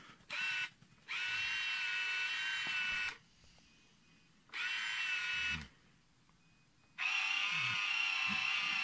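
Sky-Watcher Virtuoso mount's motors whining steadily as the telescope slews under the handset buttons, in four runs that start and stop sharply: a brief blip, about two seconds, about a second, then a longer run near the end.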